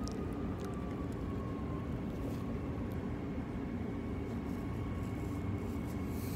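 Cabin sound of a Transperth B-series electric multiple unit (Bombardier/Downer Rail) in motion: a steady rumble of wheels on rail with a faint electric whine that dips slightly in pitch over the first two seconds, then holds a steady higher note.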